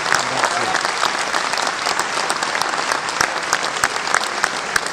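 A large audience applauding, many hands clapping in a steady, dense patter.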